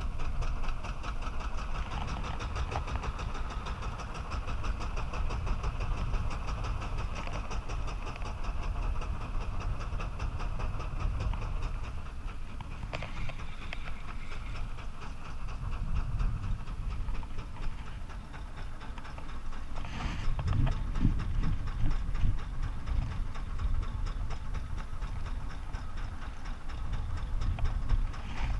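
Boat engine running steadily at slow trolling speed, with water rushing along the hull.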